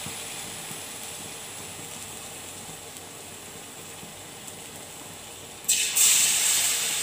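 Batter-coated green gram ball (sukhiyan) deep-frying in hot oil, a steady sizzling hiss that slowly dies down as it cooks. Near the end a second ball is dropped into the oil and the sizzling jumps suddenly louder.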